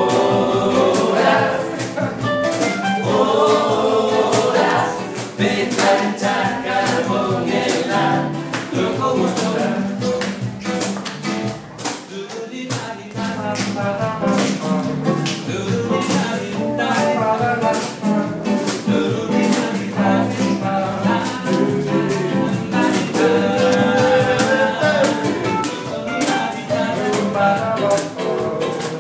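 A classical guitar strummed in a steady rhythm, with a man singing over it.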